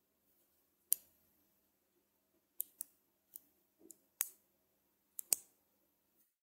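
Small neodymium magnet balls snapping together under the fingers: about eight sharp, irregular clicks, some in quick pairs.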